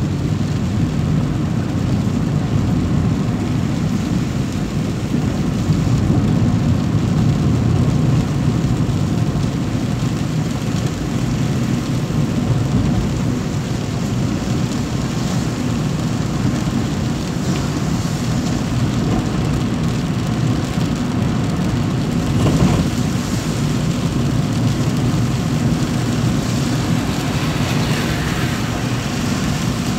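Steady low drone of a moving vehicle's engine and tyres on a wet road, heard from inside the cabin, with rain.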